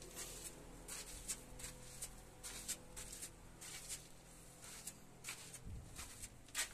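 Footsteps scuffing irregularly on a gritty cave floor, about one or two a second, over a faint steady hum.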